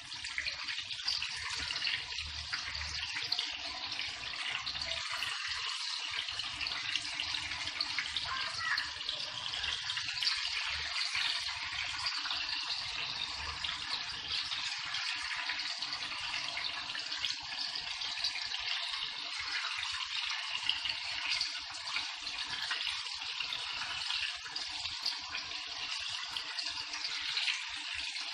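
Marinated chicken pieces sizzling steadily as they shallow-fry in hot oil in a wok.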